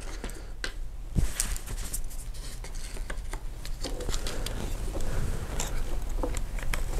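Light, scattered clicks and rubbing of hands working small parts: a servo horn being fitted back onto an RC crawler's metal-cased steering servo.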